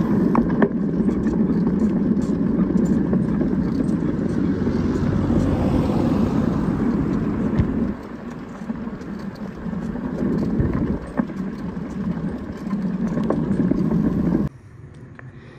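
Wind buffeting a handlebar-mounted phone's microphone while cycling, with scattered clicks and rattles from the bike and holder. The rushing eases about halfway through, picks up again, and cuts off suddenly near the end.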